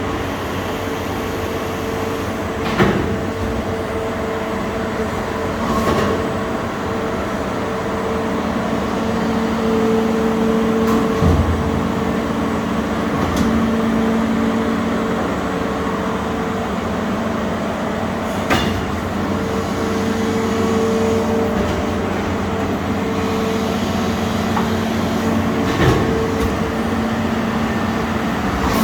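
Arburg 720 S injection moulding machine running on a test run after repair: a steady mechanical hum with two tones that fade in and out, and a sharp knock about five times at irregular intervals.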